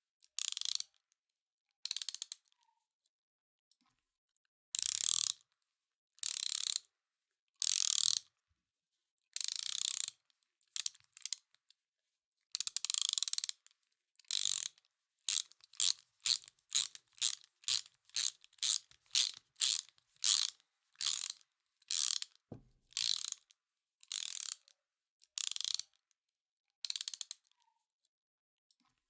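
Hand ratchet wrench clicking in short bursts, each burst the pawl ticking over the gear teeth as the handle is swung back, with brief silences between strokes. Near the middle the strokes come shorter and quicker, about two a second.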